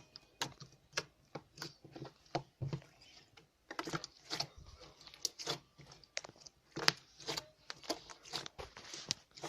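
Slime being squeezed and poked by hand, giving an irregular string of short sticky clicks and pops, a few a second.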